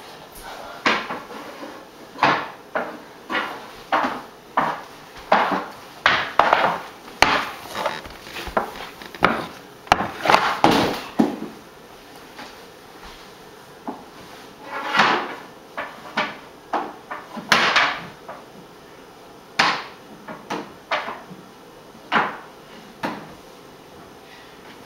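Hockey stick striking and slapping on a hardwood floor during indoor stickhandling and shooting: irregular wooden knocks about once a second, some in quick runs, with a few longer scraping strokes and a short lull about halfway through.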